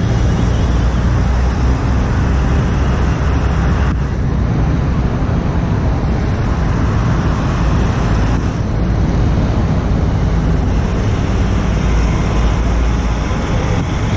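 Steady city traffic noise with a low engine rumble running throughout.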